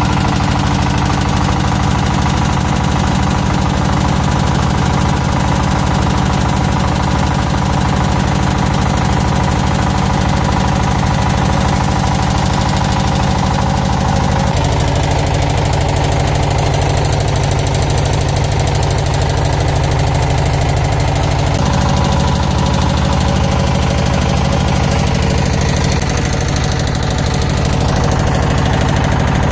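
Engine of an open wooden river boat running steadily under way. Its tone shifts slightly from about 15 to 22 seconds in, then settles back.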